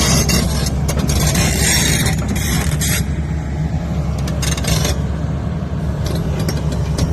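Excavator diesel engine running steadily under a low drone, with bursts of scraping over the first three seconds and again briefly about five seconds in.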